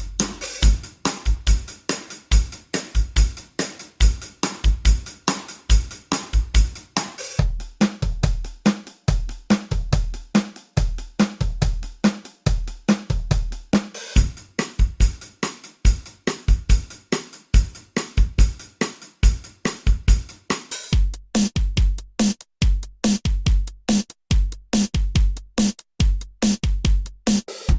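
Programmed drum-machine beat from a looper or drum pedal, its sampled kit playing kick, snare, hi-hat and cymbal in a steady groove. About three-quarters of the way through the groove changes: the cymbal wash drops out and the hits become sparser.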